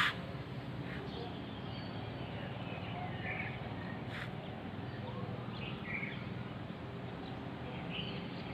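Birds chirping now and then over a steady low background hum, with a single click about four seconds in.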